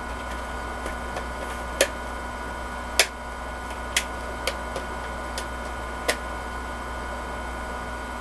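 Plastic screen bezel of a Lenovo T430 laptop clicking into place as it is pressed onto the lid: about five sharp clicks at irregular intervals, with a few fainter ones between, over a steady hum.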